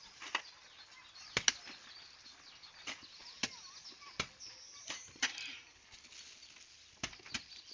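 Irregular sharp knocks and clacks, roughly one every second or so, sometimes two close together, with faint bird chirps in between.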